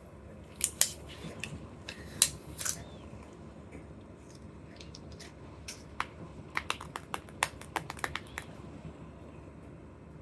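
Sharp clicks and crackles of candy or toy packaging being handled and opened. A few loud ones come in the first three seconds, then a quick run of clicks from about six to eight seconds in.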